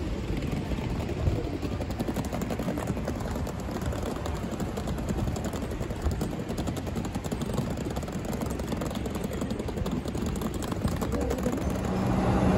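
Steady city street noise with road traffic going by. Near the end a steady low hum from inside a train comes in.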